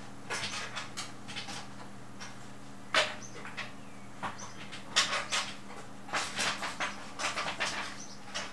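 Irregular clicks and plastic rattles of power-supply cables and connectors being handled and pushed aside inside a desktop PC case, with two sharper knocks and a busy cluster of rattling near the end, over a steady low hum.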